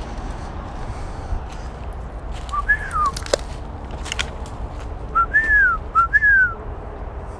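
Three slurred whistled notes, each rising and then falling, with a couple of sharp clicks between the first and second, over a steady low background rumble.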